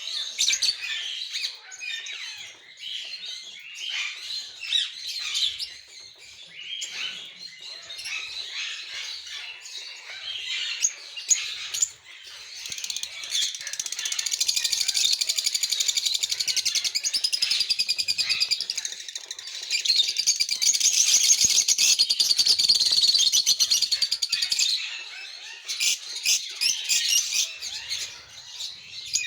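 Pet lutino and blue parakeets chirping with short, high calls. About halfway through, the calling turns into a fast, even, continuous chatter that runs for roughly ten seconds, with a short break in the middle, before it returns to separate chirps.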